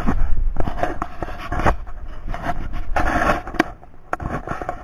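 Irregular scraping and rustling with a few sharp knocks against an aluminum jon boat as a trotline is handled over its side.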